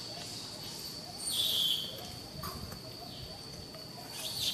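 Short high-pitched animal calls, the loudest a little over a second in and another near the end, over a steady high hum.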